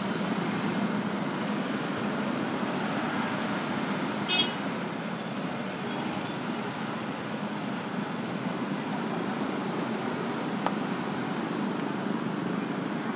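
Busy street traffic of many motorcycles and scooters running and creeping along in a crowd, a steady din of small engines and street noise. A brief, sharp, high-pitched sound stands out about four seconds in.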